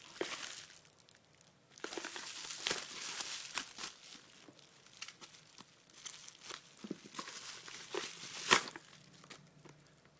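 Packaging being unwrapped by hand: irregular crinkling and tearing in bursts, with a sharp snap about eight and a half seconds in.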